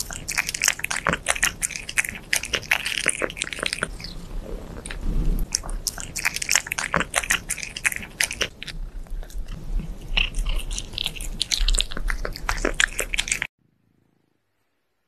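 Cats chewing pieces of raw meat, a fast, dense run of clicking bites and chews that stops abruptly near the end.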